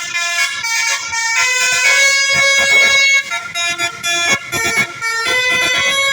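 Bus basuri 'telolet' musical air horn playing a tune: several horn notes sounding together, jumping between pitches in steps, with short breaks between phrases.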